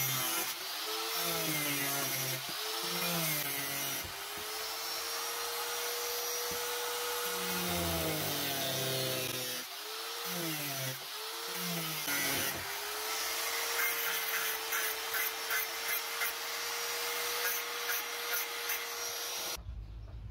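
Small angle grinder with a thin cutting disc cutting PVC pipe: a steady motor whine that sags in pitch each time the disc bites into the plastic and recovers between cuts. In the second half the whine holds steady under rhythmic pulses about twice a second, and it cuts off shortly before the end.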